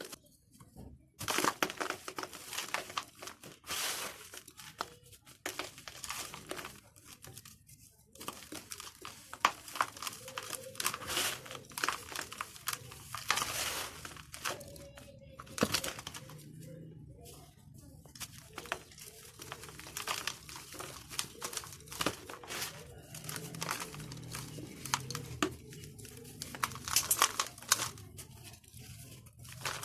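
Dry red dirt balls crunching and crumbling: a run of irregular crisp crackles coming in clusters, with short quieter gaps between them.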